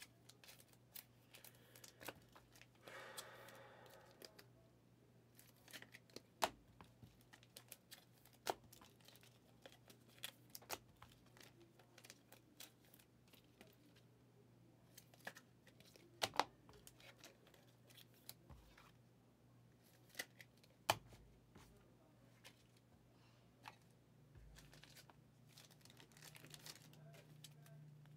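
Faint handling of trading cards: scattered light clicks and taps as cards are flipped and set down on stacks, with a short rustle about three seconds in. A faint steady hum runs underneath.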